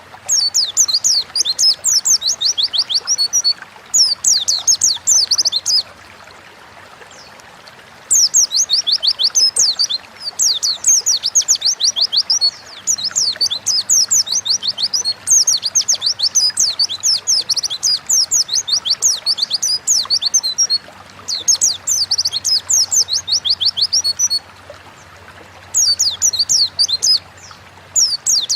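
White-eye (pleci) singing a fast, high twittering song in phrases of two to four seconds, with short pauses between phrases.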